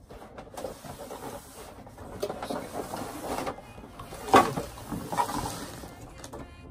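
Cardboard box and packaging being handled and opened: irregular rustling and scraping, with a sharp knock about four seconds in and a lighter one a second later.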